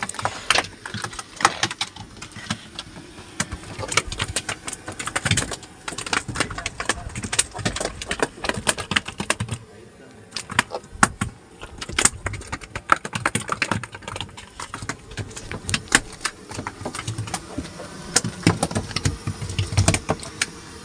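Freshly caught fish flapping and slapping on a fishing boat's deck: an irregular run of sharp knocks and rattles.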